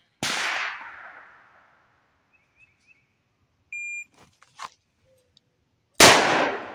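Shot-timer beep near the middle, then a Taurus 692 revolver firing two .357 Magnum shots about three-quarters of a second apart at the very end, each with a long echoing tail. A quieter sharp bang with a fading tail comes a quarter second in.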